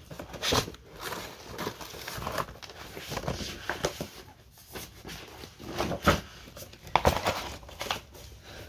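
Sheets of paper and folders rustling and crinkling as they are handled and sorted, in irregular bursts with a few louder rustles.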